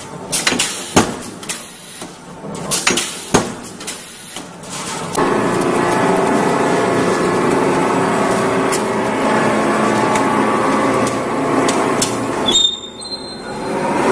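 Punching station of a rolling shutter door roll forming machine striking the steel strip in irregular sharp clanks. About five seconds in, it gives way to the steady running noise of the forming line, as the roller stations turn and the drive motor runs, dipping briefly near the end.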